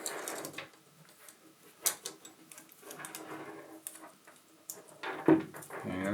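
Light clicks and rattles of a saw chain being handled and fitted back onto a chainsaw's bar, with a sharper knock about five seconds in.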